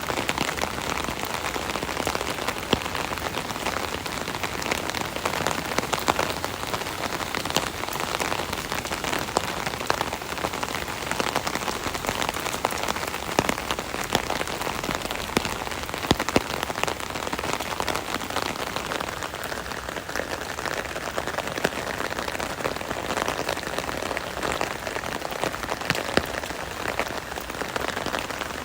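Steady rain pattering on an umbrella canopy overhead, a dense even hiss dotted with the sharper taps of individual drops.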